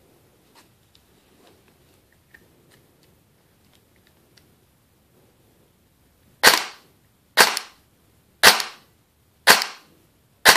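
Airsoft electric gun gearbox with SHS 12:1 high-speed gears and a high-torque motor, run on a fully charged 11.1 V LiPo, cycling in five short, sharp bursts about a second apart, starting about six seconds in. Before that only a few faint clicks.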